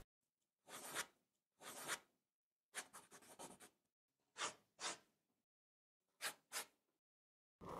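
Graphite pencil drawing on sketchbook paper: a series of short, faint scratchy strokes with pauses between them, and a louder, longer stroke starting near the end.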